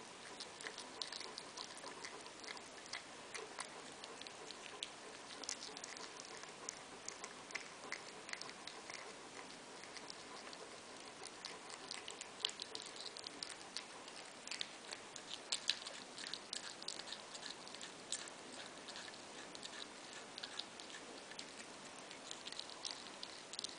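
Maine Coon cat chewing a mouse: faint, irregular clicks and crunches that come thickest around the middle, over a steady hiss.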